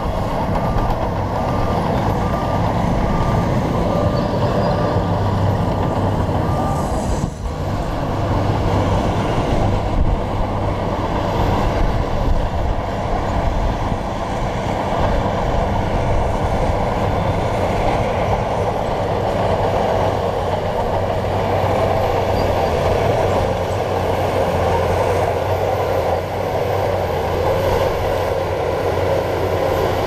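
Shantui crawler bulldozer's diesel engine running steadily under load as the machine pushes a pile of stone and soil with its blade, with a momentary break in the sound about seven seconds in.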